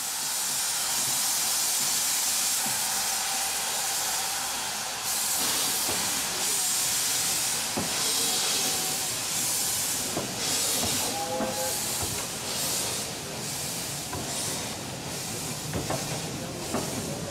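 Two 1860s narrow-gauge steam tank engines hissing steam, then starting to chuff in a steady exhaust beat from about five seconds in.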